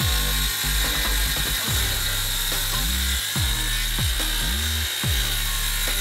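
Background music with deep, repeating pitch-dropping bass notes, laid over a Makita circular saw cutting through an oak door with a steady high whine.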